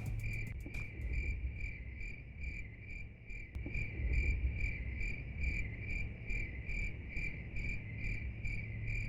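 Cricket chirping steadily, a high pulsing trill that repeats about two to three times a second, over a low hum.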